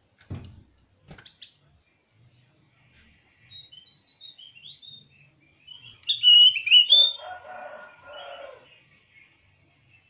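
Javan grey-throated white-eye (opior jawa) calling to provoke a rival: a run of short high chirps about three and a half seconds in, then a louder burst of sharp chirps about six seconds in, followed by a lower, rougher chatter. Two dull thumps near the start.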